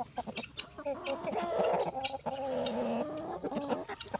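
Chickens clucking, with a longer raspy call from about one to three seconds in, among quick short calls.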